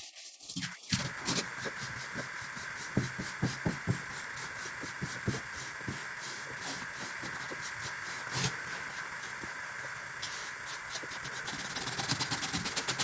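Rotary power tool running with its abrasive against the rusted steel of a butcher's cleaver blade, removing rust: a steady hiss over a constant whine, with many scattered ticks. It starts about a second in.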